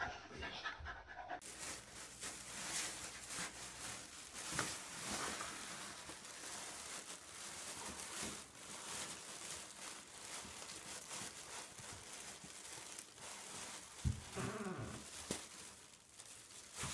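A puppy panting, with the crinkle of a thin plastic bag it is nosing at.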